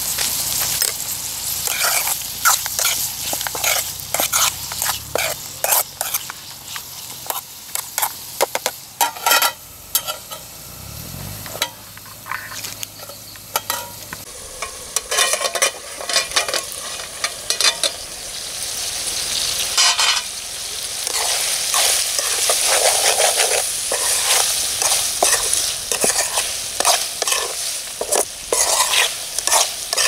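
Metal ladle scraping and clinking against an aluminium pot as partridge curry is stirred, with the meat frying and sizzling in the pot. The sizzle grows steadier and louder from about halfway through.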